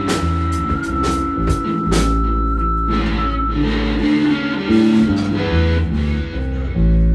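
Recorded rock music with guitar and a heavy bass line. Drum hits sound in the first two seconds, and a high held note stops about halfway through.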